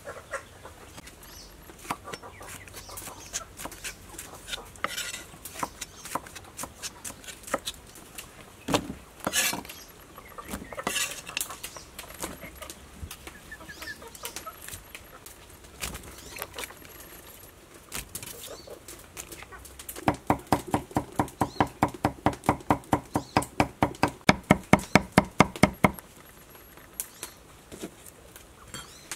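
Knife chopping on a wooden chopping board: scattered knocks and clatter at first, then about two-thirds of the way in a fast, even run of strokes, about five a second, for some six seconds.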